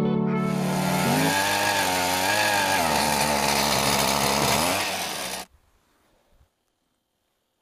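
Jiffy power ice auger's engine running and drilling into lake ice, its pitch wavering up and down under load. It cuts off abruptly about five and a half seconds in, leaving near silence.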